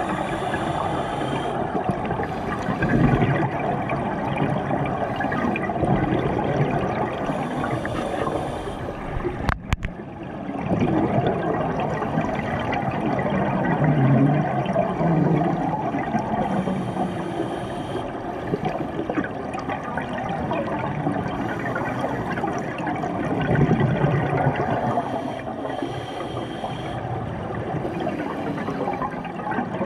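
Scuba diver breathing through a regulator underwater, recorded through the camera housing. A short hiss on each inhale comes about every eight to nine seconds, with a long gurgling rush of exhaled bubbles between them. There is a brief click and dropout about ten seconds in.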